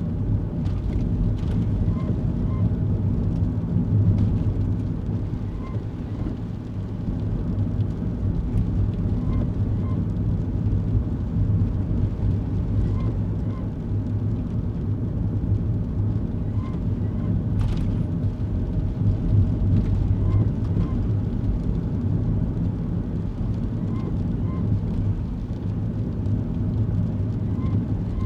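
Inside a kei car on the move: the small 660 cc engine and tyre and road noise make a steady low rumble. A faint pair of short chirps comes about every four seconds, and there is a single sharp click about two-thirds of the way through.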